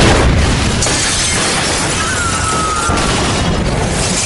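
A car explosion: a sudden loud blast, then the steady rushing of the fireball and flames from the burning car, with a faint falling whine about two seconds in.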